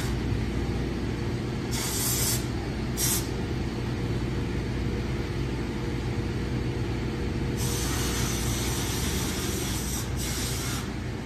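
Hand-held high-pressure spray wand hissing as water is sprayed onto a car, in bursts: briefly about two seconds in, again a moment later, and a longer spray from about halfway to near the end. A steady low machine hum runs underneath.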